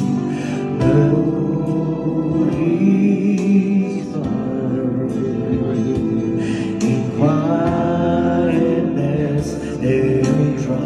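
A man singing a worship song into a microphone, amplified through loudspeakers, with guitar accompaniment.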